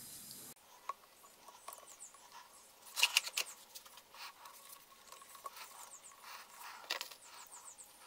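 Faint, scattered clicks and taps of hands handling a string trimmer's plastic fuel tank and fuel lines, with a short run of sharper taps about three seconds in.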